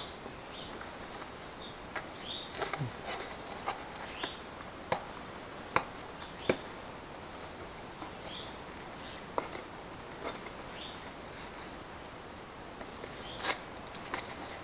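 A stiff paper-and-plaster canopy shell being handled and flexed, giving scattered crackles and sharp clicks. Short high chirps come every couple of seconds.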